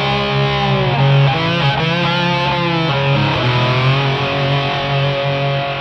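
Soundtrack music led by guitar, its notes bending up and down in pitch over a steady low bass note.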